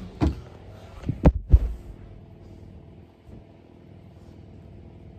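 A few dull thumps and knocks close to the microphone in the first two seconds, the loudest pair about a second and a half in, then a low steady hum.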